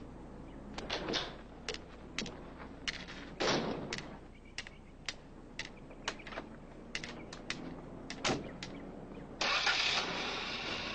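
A white cane tapping and footsteps on pavement, about two sharp clicks a second with a few heavier knocks among them. A louder steady rushing noise sets in near the end.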